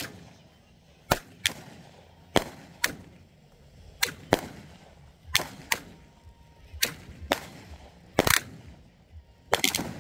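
Aerial fireworks going off in a steady string of sharp bangs. They come mostly in pairs about half a second apart, about seven pairs, each bang followed by a short rumbling echo.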